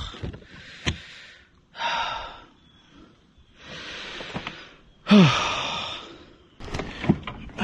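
A man breathing hard in pain after a catfish spine has punctured his hand: about five long, heavy, sighing breaths, one starting with a short falling groan about five seconds in.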